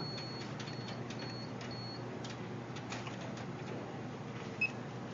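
High-pitched electronic feedback beeps from an adapted sip-and-puff switch interface for an iPod, which cue the functions the switch selects (play/pause is the long one). A long beep stops about half a second in, three short beeps follow about half a second apart, and a single short blip comes near the end, over a steady low hum.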